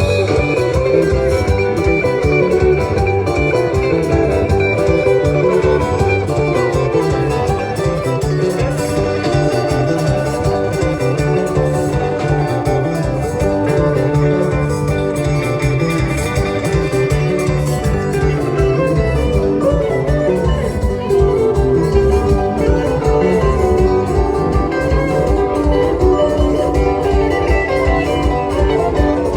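A dance band playing upbeat music with a steady beat, a plucked guitar line to the fore.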